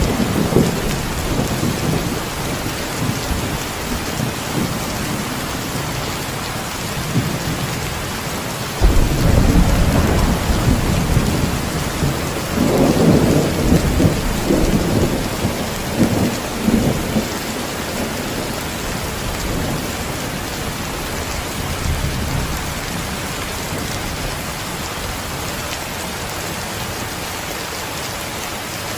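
Heavy steady rain with thunder. A rumble of thunder fades early on, and another begins sharply about nine seconds in, rolls for several seconds and dies away, leaving only the rain.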